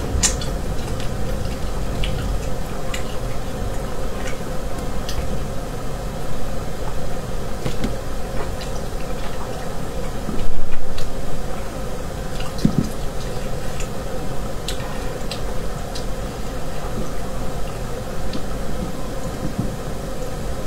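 Close-up eating sounds of a spicy braised rabbit head: wet chewing and smacking, with scattered short clicks as the meat is pulled from the bones. A steady hum runs underneath, and there is one louder burst about halfway through.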